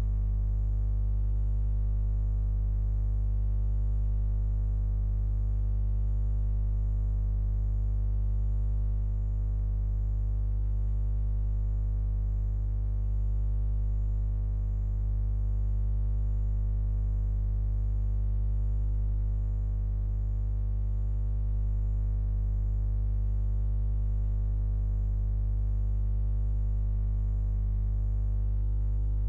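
A steady low hum or drone with many evenly spaced overtones, unchanging in pitch and level throughout.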